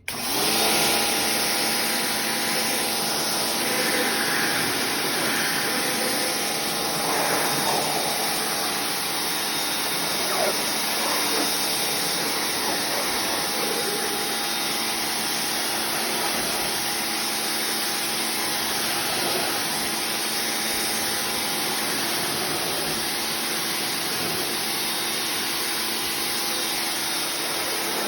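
A 2000 psi pressure washer starting suddenly and then running steadily, its motor and pump humming under the hiss of the water jet.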